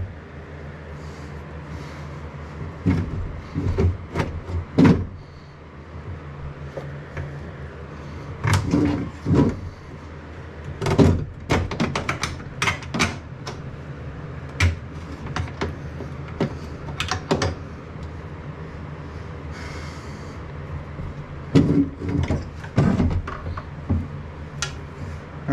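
Irregular knocks and clunks of a jetski engine being wrestled up and out of its hull by hand, the metal engine bumping against the hull, coming in several clusters. A steady low hum runs underneath.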